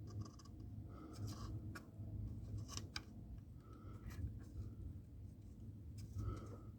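Faint scattered clicks and scratches of a soldering iron tip working at a battery leg's solder joint on a circuit board while the leg is wiggled loose, over a low steady hum.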